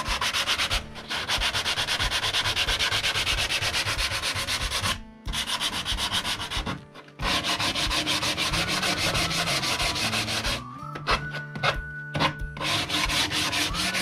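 Hand sanding of a wooden board with sandpaper wrapped on a sanding block: rapid back-and-forth rasping strokes, with two brief pauses about five and seven seconds in.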